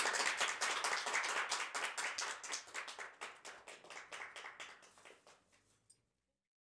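Audience applauding, dense at first, then thinning to scattered claps that fade out; the sound cuts to dead silence about six seconds in.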